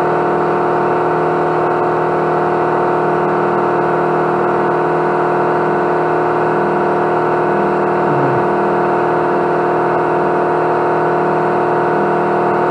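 A motor running steadily, a constant machine hum with several fixed tones.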